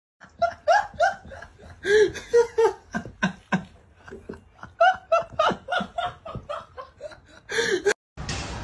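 High-pitched laughter in quick runs of short bursts, cutting off abruptly near the end.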